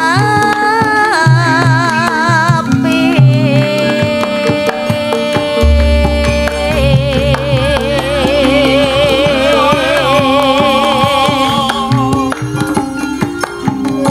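Javanese sinden singing a tembang with wavering vibrato into a microphone, over gamelan accompaniment with hand-drum strokes. A deep low note sets in about halfway through and holds.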